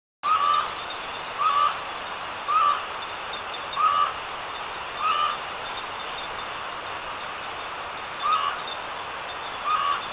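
A night bird calling from a tree: a short hooting note repeated about once a second, seven times, with a pause of a few seconds partway through, over a steady hiss.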